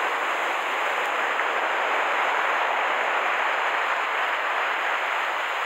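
Steady rushing hiss of surf breaking and washing along the shore.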